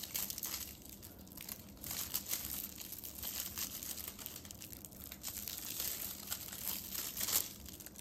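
Polyethylene packing tape (suzuran tape) crinkling and rustling in irregular crackles as it is pulled through single crochet stitches with a crochet hook.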